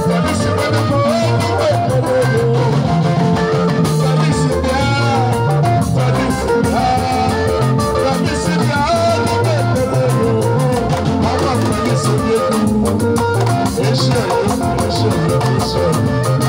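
Live band music with electric guitar and bass, amplified through PA speakers, and a man singing into a microphone over it.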